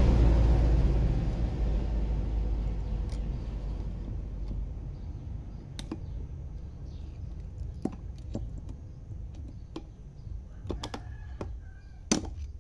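Scattered sharp metallic clicks and clinks of circlip pliers and metal parts being handled on a Kubota DC70 hydrostatic (HST) transmission pump, the loudest click near the end. A low rumble fades away over the first few seconds.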